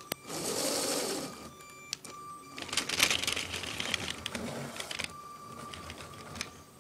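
Rustling and scraping handling noise as a hand and the camera brush against carpet, in two longer bursts with scattered clicks, and a faint thin whine that comes and goes.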